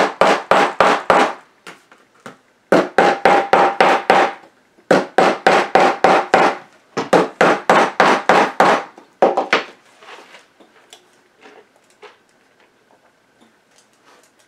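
Small hammer, thought to be bronze, peening snap rivets through a leather journal spine: quick runs of light metal-on-metal blows, about five a second, in bursts of a second or so with short pauses, each strike with a slight ring. The hammering stops about ten seconds in, leaving only a few faint taps.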